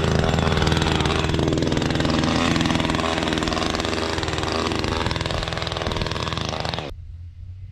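Snowmobile engine idling steadily, then dropping suddenly to a faint low rumble near the end.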